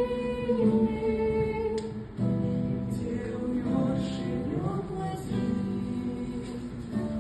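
A song: a voice singing held notes over acoustic guitar.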